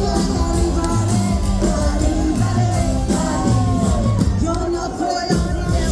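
Live band playing a song: a lead voice sings over bass and drums, with a brief break in the low end about five seconds in.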